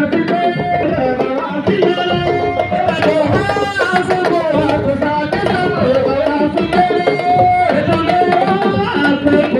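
Drums beating quickly under a voice singing long, held notes.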